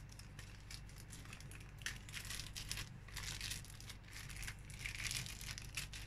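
Thin clear plastic bag crinkling in a run of irregular short rustles as a remote control is handled and worked out of it by hand.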